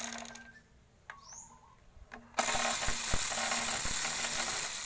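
A loud, steady mechanical hiss, like a shop tool or compressed air running, starts a little over two seconds in and holds to the end, with a few low knocks beneath it and a faint low hum throughout.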